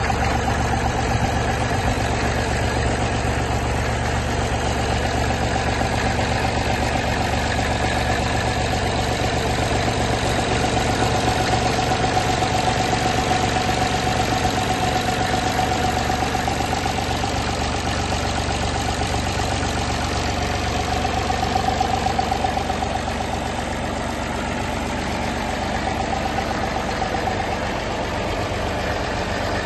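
Massey Ferguson 35X tractor's three-cylinder Perkins diesel engine idling steadily.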